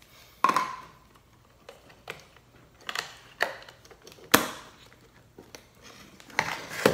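Scattered clicks and knocks of small hard objects being handled on a work surface, irregularly spaced, with the sharpest knock a little past the middle and a short ringing click near the start.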